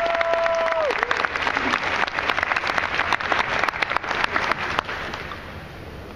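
Audience applauding, with a long held tone over it that ends about a second in; the clapping dies away about five seconds in.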